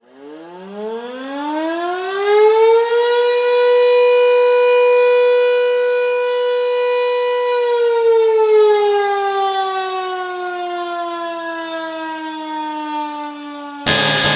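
Civil defense siren winding up over about three seconds, holding a steady wail, then slowly winding down. Near the end a loud, harsh buzzing tone cuts in abruptly.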